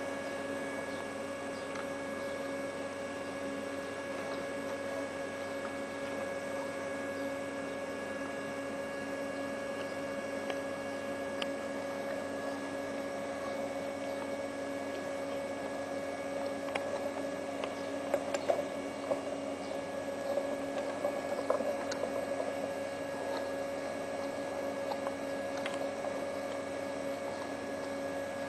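Steady electrical hum made of several constant tones, with a few faint clicks about two-thirds of the way through.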